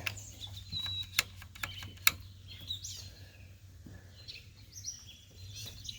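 A few scattered sharp clicks and taps, the loudest about two seconds in, with birds chirping now and then in the background.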